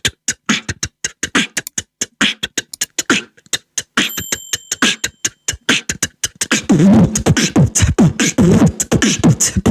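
Beatboxed mouth imitation of an object's sound: a fast run of sharp mouth clicks, with thin high tones briefly about four seconds in, giving way about six and a half seconds in to denser voiced sounds that waver in pitch.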